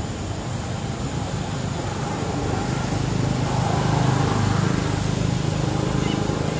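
A motor vehicle's engine droning steadily, swelling to its loudest around the middle and easing slightly toward the end.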